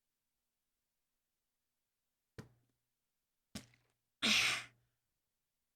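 A woman's heavy, breathy exhale, loud and about half a second long, coming a little past halfway through. Two faint clicks come before it.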